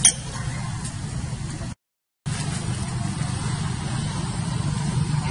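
A steady low hum, with a sharp click right at the start and a half-second break into total silence about two seconds in.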